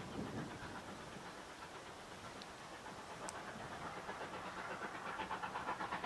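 Distant steam locomotive W22, a Beyer Peacock-built W class, working with rapid exhaust beats, out of sight and growing louder towards the end as it approaches.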